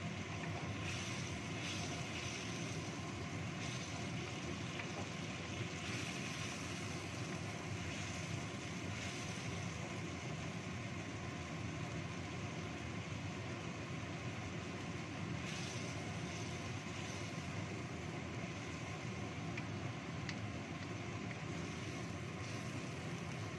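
Thick red spice sauce cooking down in a wok over a gas burner, a steady sizzling and bubbling with the burner's rush underneath. A wooden spatula stirs it now and then, with a few faint scrapes.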